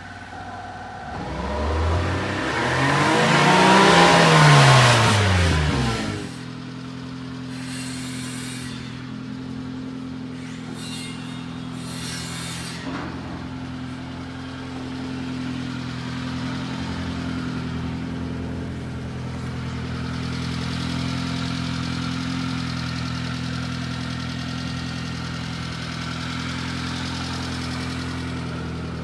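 Subaru Sambar kei truck's 660 cc four-cylinder engine. It revs up and back down over the first six seconds, its pitch rising and then falling, loudest about four to five seconds in. Then it settles into a steady idle.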